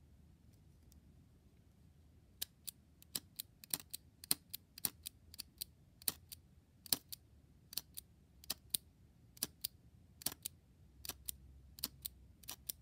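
The thumb lever of a vintage Ronson Standard petrol lighter being pressed and released again and again, giving sharp metallic clicks, often two close together, a couple a second, starting about two seconds in: the reassembled lighter's mechanism being worked.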